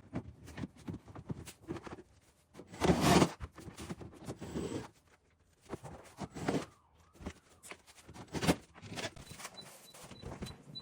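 Irregular knocks and clicks of hand work on kitchen fittings, with a louder rasping scrape about three seconds in and a faint, evenly spaced high pipping near the end.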